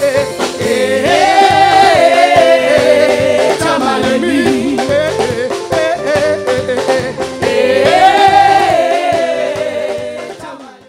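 Gospel worship song: a woman's voice singing a melody with wide vibrato over a band with a steady beat, fading out near the end.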